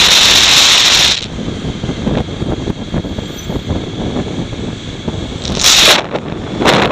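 Wind buffeting the microphone of a camera on a moving motorcycle in traffic, with loud gusts of rushing noise at the start and again near the end, and a low crackly rumble in between.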